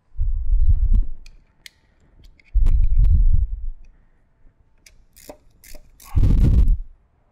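Spark plugs being snugged down by hand: scattered light clicks and knocks of the plug socket and hand against the motorcycle's cylinder head, under three heavy low rumbling thumps near the start, about two and a half seconds in and about six seconds in.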